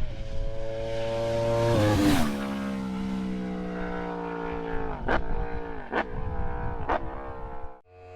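Yamaha R1 sport bike engine passing at speed, loudest about two seconds in, where its pitch drops as it goes by. It then pulls away at a slowly falling pitch, with three sharp cracks about a second apart near the end.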